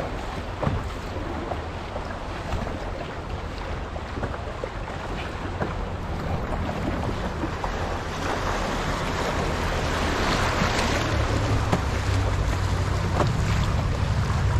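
Fast river current rushing and splashing around a canoe, with wind buffeting the microphone. The rush of water grows louder about halfway through as the canoe runs into a riffle.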